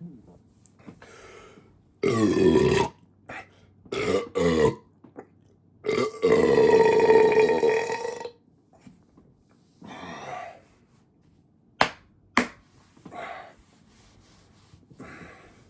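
A person belching repeatedly after drinking soda. A loud belch comes about two seconds in, a shorter double belch around four seconds, and a long, steady belch of about two seconds in the middle. Quieter belches and a couple of sharp clicks follow.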